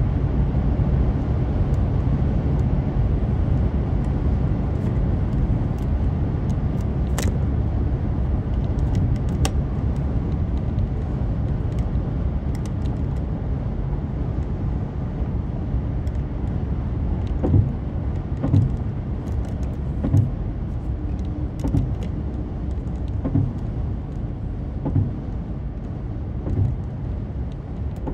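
A car driving along a road, with a steady low rumble of tyres and engine. There are scattered light clicks, and in the second half a run of short low thumps about a second apart.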